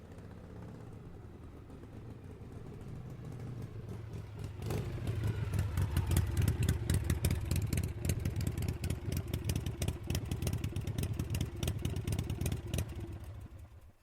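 Harley-Davidson V-twin motorcycle engine. A low engine sound builds for the first few seconds; about five seconds in it gets much louder and runs with an uneven, loping beat of firing pulses, then stops just before the end.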